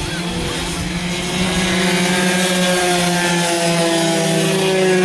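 Small racing motorcycle engines held at high revs, a steady buzzing note that grows louder about a second and a half in as the bikes come closer.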